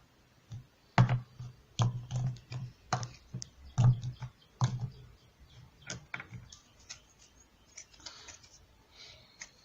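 Hard plastic toy pieces of a Play-Doh set knocking and clicking as they are handled and pressed, with about half a dozen irregular knocks in the first five seconds, then lighter, fainter clicks.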